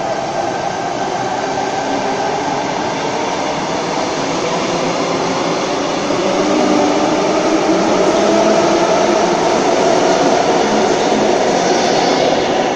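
Sydney Trains electric train running out of an underground station platform, with steady wheel and rail noise that gets louder about halfway through as it picks up speed, the last car passing near the end.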